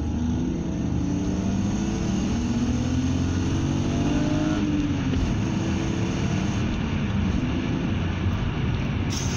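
BMW E34 525i straight-six engine accelerating: its note climbs steadily for about four and a half seconds, then drops back and runs on at a steadier pitch.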